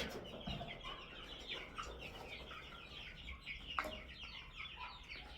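Chickens clucking and chirping, a dense run of short high calls, with one sharp click about four seconds in.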